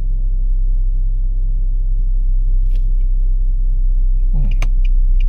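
Car driving, a steady low engine and road rumble, with a few light clicks near the end.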